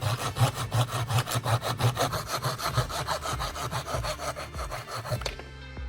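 Handsaw cutting through a small piece of wood, in quick, even back-and-forth strokes that stop about five seconds in.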